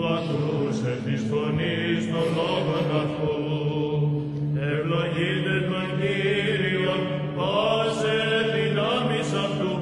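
Greek Orthodox chant: voices singing a slow, wavering melody over a steady low held drone note.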